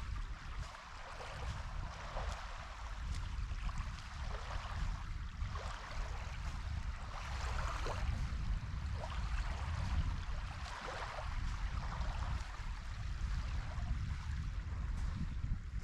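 Small waves on a calm sea lapping and splashing in irregular surges, over a low, uneven wind rumble on the microphone.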